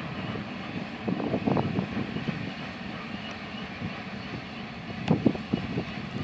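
Distant steady rumble of a BNSF freight train's diesel locomotives hauling the train around the loop, with wind buffeting the microphone about a second in and again about five seconds in.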